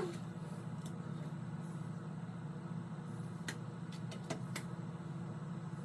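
Steady low mechanical hum, with a few faint clicks in the second half.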